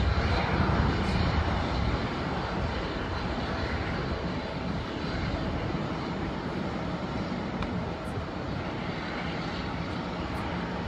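Twin-engine jet airliner at takeoff thrust, a steady broad rumble. It is loudest just after liftoff and eases slowly as the plane climbs away.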